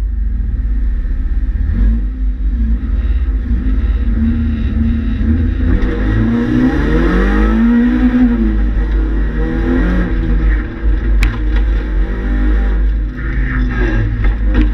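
Citroën Saxo rally car's four-cylinder engine, heard loud from inside the stripped cabin: running with a heavy low rumble, then climbing in revs to a peak about eight seconds in and falling back as the car gets under way. A sharp click about eleven seconds in.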